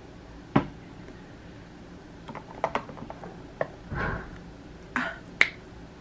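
Plastic clicks and taps from a Dash mini waffle maker as its lid is shut down on the batter: one sharp knock about half a second in, then a scatter of lighter clicks.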